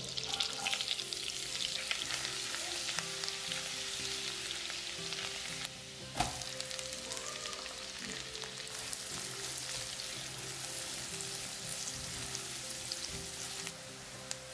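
Minced garlic and then chopped onion sizzling in hot butter and oil in a nonstick wok, a steady crackling hiss. A single sharp knock about six seconds in.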